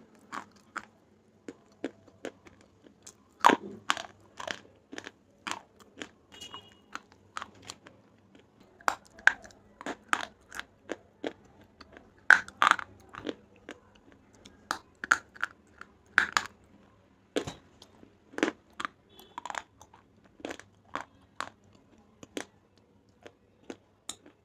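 A slate bar being bitten and chewed, crunching sharply and unevenly about one or two times a second.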